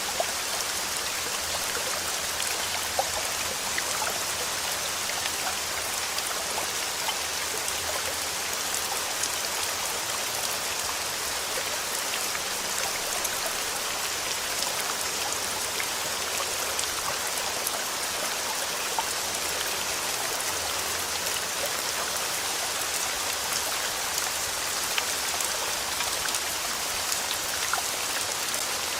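Steady rain falling, with a dense scatter of small drop ticks and no change in intensity.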